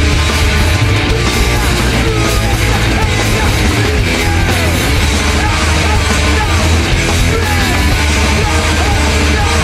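Harsh noise music: a loud, dense wall of distorted noise over a steady low drone, laced with short wavering squeals that slide up and down in pitch.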